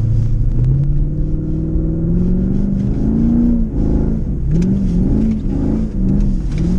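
4.7-litre V8 engine of a Jeep Grand Cherokee revving under throttle. Its pitch climbs steadily for about three seconds, then rises and falls several times as the throttle is worked.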